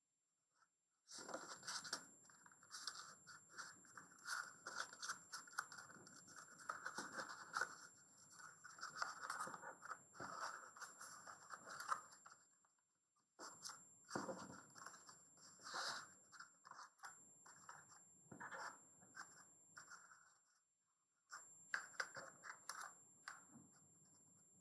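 A sheet of paper being folded into a ribbed accordion fold: paper rustling and fingers scraping along the creases to press them flat, in three stretches broken by short pauses.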